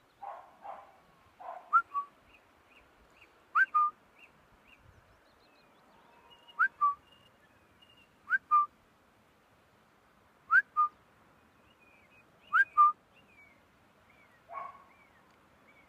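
Shepherd's whistled commands to a working sheepdog: six short two-note whistles, each a quick rising note followed by a short level one, coming every two to three seconds. Fainter short chirps sound in between.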